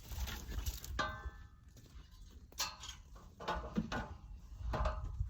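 Wind buffeting the microphone, with knocks and scrapes as objects are moved by hand.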